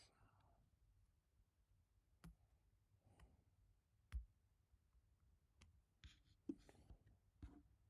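Occasional single keystrokes on an HHKB Type-S keyboard: quiet, sparse clicks at irregular intervals, a few closer together near the end, the sharpest about four seconds in.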